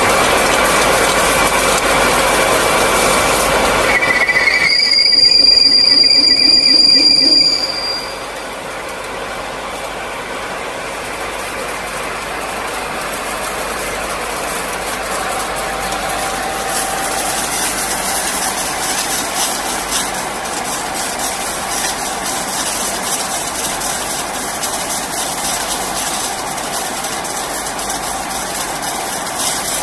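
Beaver 8S stationary pipe bevel machine running, its rotating cutting head turning a 30-degree bevel on the end of a steel pipe with a steady mechanical running noise. About four seconds in, a loud high-pitched squeal sounds for about three seconds, and after it the running noise is quieter and builds slowly.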